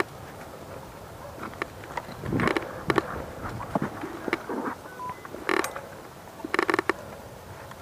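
Footsteps on dirt and twigs with gear creaking and rattling as someone walks, a few short crackling scuffs standing out over a quiet background.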